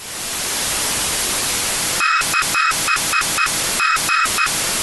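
Television static hiss that fades in quickly. About two seconds in it breaks up into rapid, irregular stutters with a high buzzing tone, like a signal cutting in and out.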